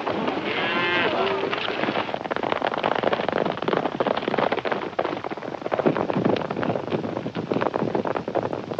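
A cow bawls once about a second in, over milling cattle, then from about two seconds on comes the rapid drumming of hooves as a group of horses gallops.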